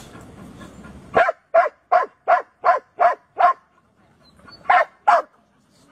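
A dog barking: seven quick barks in a row, about three a second, then a short pause and two more barks near the end.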